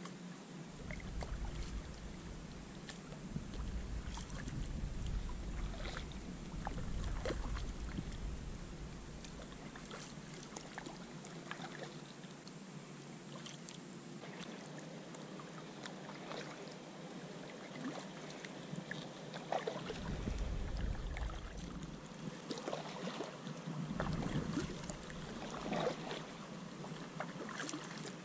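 Kayak paddling: the paddle dipping and splashing in the water, with scattered drips and a low rumble of wind on the microphone that comes and goes.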